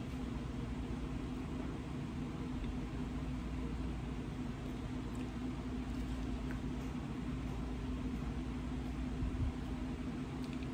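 Steady low mechanical hum with one constant tone, and a few faint clicks over it.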